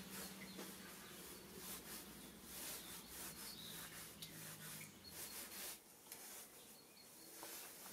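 Faint rubbing and scraping of a brush worked over a small wooden block, in soft scattered strokes. A faint low hum stops about six seconds in.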